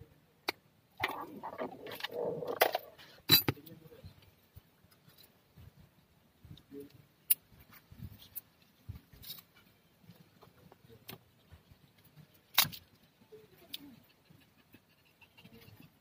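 Hands handling a car's loose wiring and plastic wire connectors: scattered clicks and rustling, with a longer rustle between about one and three seconds and sharp clicks a little after three seconds and again near twelve.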